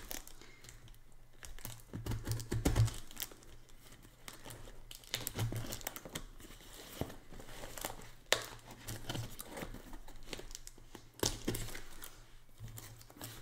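Packing tape being peeled and torn off a cardboard box and the cardboard flaps being worked open: crackling tearing of tape and scraping of cardboard, with scattered sharp clicks.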